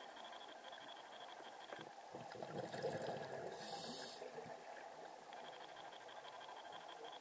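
Faint, muffled water noise picked up by a camera recording underwater, with a faint steady high tone. A louder rushing swell runs for about two seconds in the middle.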